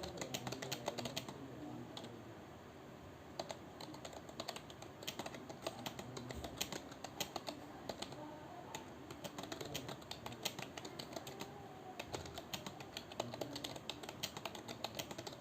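Computer keyboard being typed on during a timed typing test: a continuous run of irregular key clicks with a brief lull about two seconds in.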